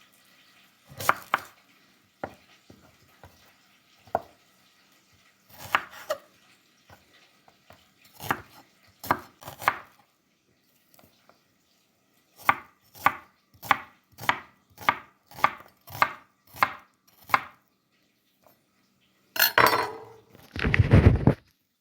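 Knife chopping on a cutting board in separate strokes, scattered at first, then a steady run of about two strokes a second. Near the end comes a louder clatter with a heavy low thud.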